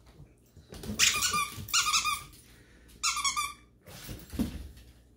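Rubber squeaky dog toy squeezed in quick repeated squeaks, two bursts about a second apart, followed by a low thump about four seconds in.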